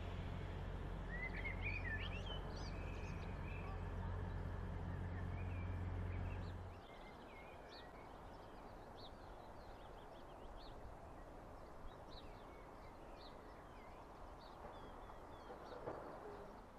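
Grand Central Class 180 Adelante diesel multiple unit standing with its engines idling: a steady low hum that cuts off suddenly about seven seconds in. After that, birds chirp and sing, with short calls scattered throughout.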